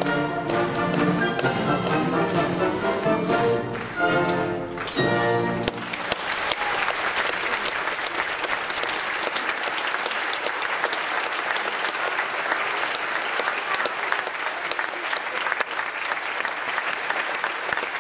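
A ballet orchestra plays the closing bars of a solo variation, ending on a few short, loud final chords about four to six seconds in. Audience applause then breaks out and carries on steadily.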